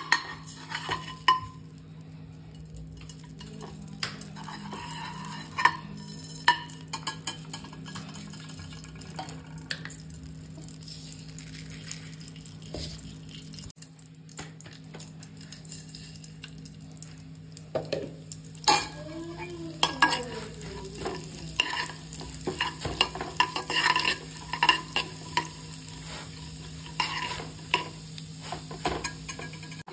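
A steel spoon clinking and scraping in an aluminium kadhai of melting ghee, then cumin seeds frying in the hot ghee while being stirred, with clicks more frequent in the second half. A steady low hum runs underneath.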